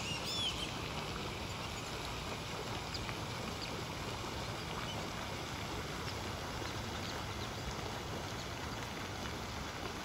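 Pond fountain spray splashing back onto the water: a steady, even hiss and patter, with a few faint high chirps over it.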